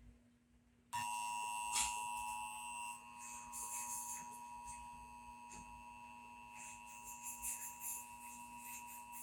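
A steady electronic tone, several pitches sounding together like a chime, starts about a second in, fades a little, and cuts off sharply near the end, over a faint low hum.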